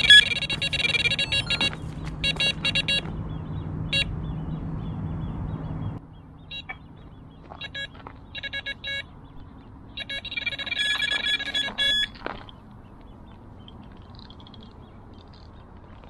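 Electronic carp bite alarm sounding in several runs of rapid, high-pitched beeps, the longest at the start and about ten seconds in, as line is drawn across it while the rods are packed away. A low steady hum stops suddenly about six seconds in.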